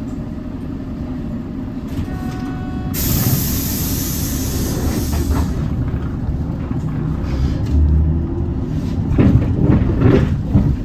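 Diesel Hyundai Green City bus engine running steadily, heard from aboard. About two seconds in, a short electronic tone sounds, followed by a loud compressed-air hiss lasting a couple of seconds. Near the end the engine pulls harder, with some rattling.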